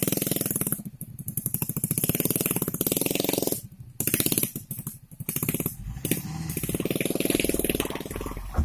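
Suzuki Mega Carry pickup's engine revving hard under load as the loaded truck labours through deep mud. It eases off briefly about three and a half seconds in, then revs up again.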